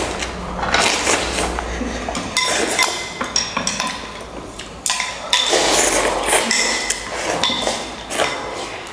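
Eating utensils clinking and knocking against bowls during fast noodle eating, many short knocks with brief ringing pings at irregular intervals.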